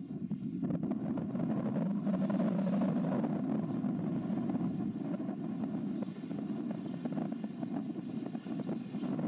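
Low engine rumble of tugboats working alongside a container ship, carried across the water, getting louder about two seconds in, with wind buffeting the microphone.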